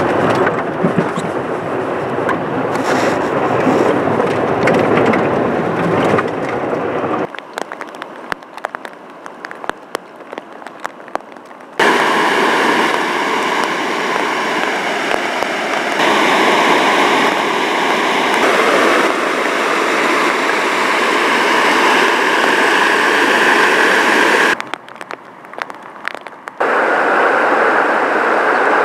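Muddy floodwater rushing and churning over a channel bank and down a flooded wash, a loud steady roar that makes up most of the second half. It is preceded by a car driving on a rain-soaked road, heard from inside with tyre and rain noise, and broken by two short quieter stretches of crackling.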